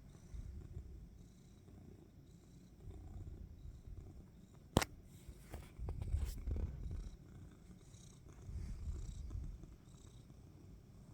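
A domestic cat purring, a low rumble that swells and fades with each breath. There is a sharp click a little under halfway through.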